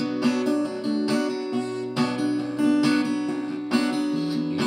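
Acoustic guitar strummed in a steady rhythm, sustained chords with a fresh stroke about once a second, with no voice.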